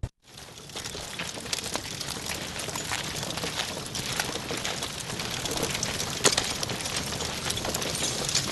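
Steady crackling hiss, dense with many small sharp clicks, setting in after a brief moment of silence at the start.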